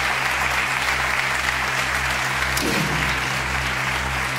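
Studio audience applauding over stage music: a low bass pulse about twice a second and a steady low hum.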